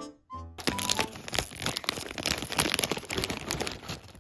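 Plastic dog-treat packaging crinkling and rustling as it is handled, a dense run of crackles starting about half a second in.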